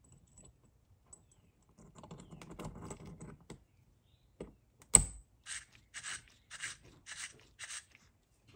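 Workshop hand work on small parts: a brief rattling scrape, then one sharp loud click, followed by six even rasping strokes about half a second apart.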